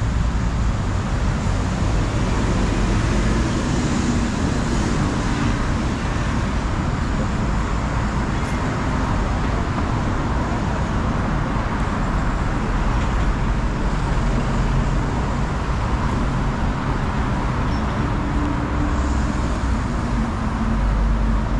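Steady city road traffic: a continuous rumble and hiss of passing vehicles on a busy street.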